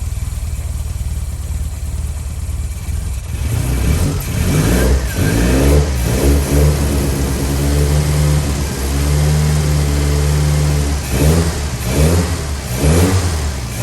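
Classic Mini's four-cylinder A-series engine idling steadily, then revved in a series of throttle blips with two longer held rises in revs, all within its first run in ten years.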